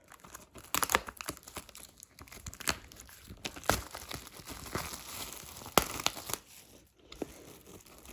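Plastic shrink-wrap on a DVD box set being torn and peeled off, crinkling continuously with several sharp cracks.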